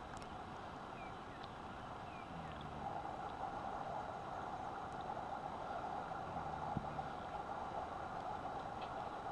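A person snoring: short, low snores about every four seconds over a steady hum.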